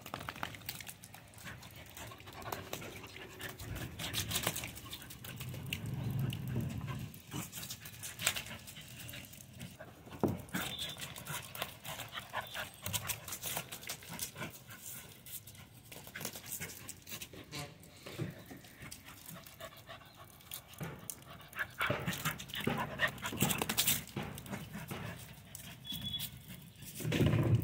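Labrador puppy panting as it plays, with its paws slapping and splashing through shallow puddles on wet concrete in a quick, irregular run of short strokes.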